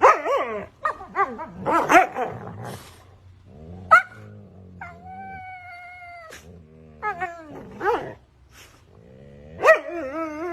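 Husky vocalising: a run of short yowls and yips that bend up and down in pitch, one long steady howl about five seconds in, and more yowls near the end.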